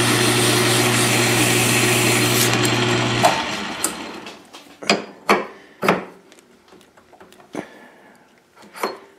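South Bend 13-inch lathe running with a strip of abrasive cloth held against the spinning shaft: a steady motor hum under a rasping hiss. The rasp stops about two and a half seconds in, and the motor cuts off with a click a moment later. Then come several short metal clicks and knocks as the handwheel is fitted onto the shaft.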